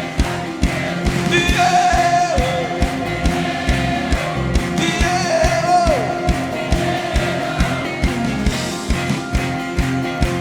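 Live worship band with a steady, driving drum beat, with voices holding long notes that slide downward.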